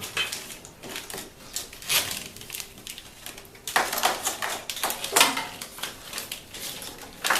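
Irregular handling noise: a run of clicks, rattles and rustles from a plastic-sheathed wiring harness being fed under a golf cart's chassis, with a denser patch of rustling about halfway through.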